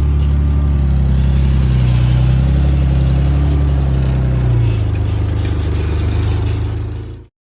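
Isuzu SUV engine running under load off-road, its note dropping slightly about four and a half seconds in. The sound cuts off suddenly near the end.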